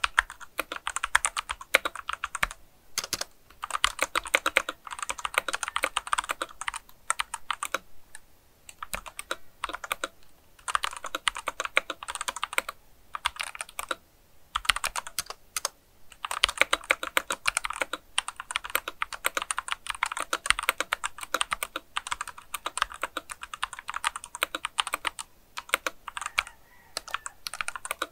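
Typing on a Womier WK61 60% mechanical keyboard with Outemu Red linear switches: fast runs of key clacks broken by short pauses every few seconds.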